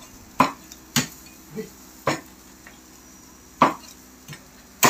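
Sharp knocks of a utensil on a barbecue grill, about five of them at irregular spacing.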